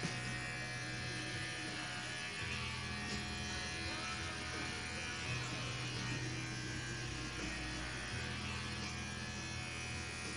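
Electric hair clippers buzzing as they shave a head. The hum shifts in pitch a few times.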